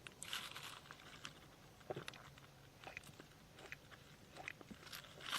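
Faint mouth sounds of someone drinking and eating in a small space: soft sips, swallows and small clicks scattered through the quiet.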